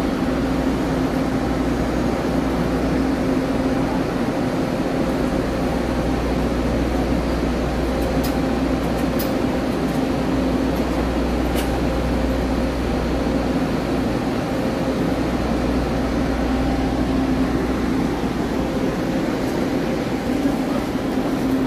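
Diesel railcar idling at the platform: a steady mechanical hum over a low rumble, with a few faint clicks about a third of the way in.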